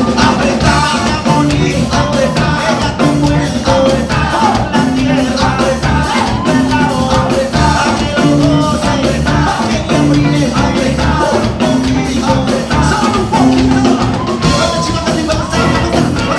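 A band playing upbeat music with a steady drum beat, with singing.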